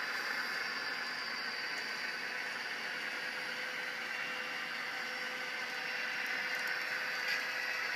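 HO-scale model train running: a steady whirring hiss from the F45 model locomotive and its freight cars rolling on the track, with a light click near the end.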